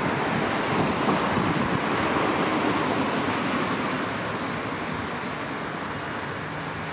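Street traffic: a car passing close by, its tyre and engine noise fading after about four seconds as it drives away, with wind on the microphone.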